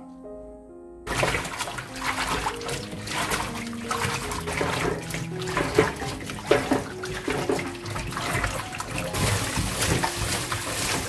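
Tap water running and splashing into a stainless steel bowl while a bunch of garlic scapes is rinsed and rubbed by hand, starting about a second in.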